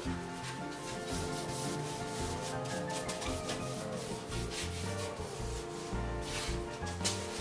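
A brush scrubbing wood finish onto bare pine boards in quick repeated strokes, over background music with held notes.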